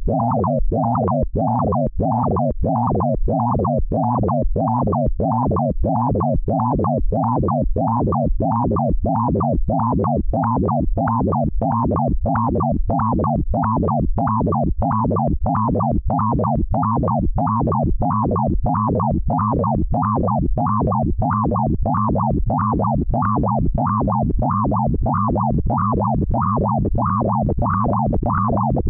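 Synthesised sonification tone generated in Pure Data from a photograph's pixel colour values: a dense, distorted, buzzing drone that swells in a steady pulse about twice a second.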